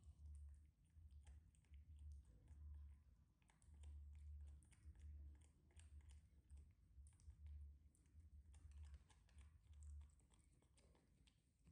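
Faint, irregular small clicks and crackles of macaques eating, over a low rumble that comes and goes.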